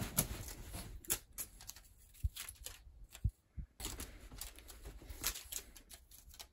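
Quilted bedspread rustling and scratching as a cat pounces and scrabbles after a feather wand toy, with a few soft low thumps.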